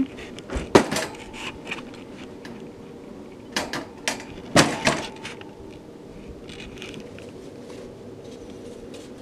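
Clatter of things being handled in a wire guinea pig cage as food is put in: a few sharp knocks about a second in, and another group of knocks and rattles around four to five seconds in.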